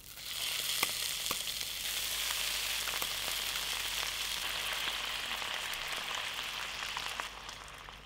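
Slices of su ji, pressed-tofu "vegan chicken", sizzling loudly as they are laid into a hot oiled pan, with a few light taps as pieces go in. The sizzle starts suddenly and dies down about seven seconds in.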